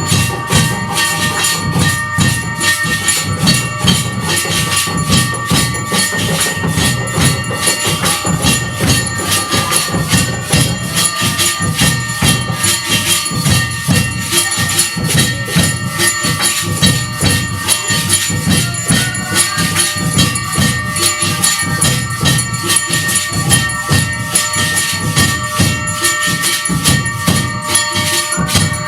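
Hindu temple aarti percussion: bells ringing and metal cymbals clanging in a fast, steady, unbroken rhythm.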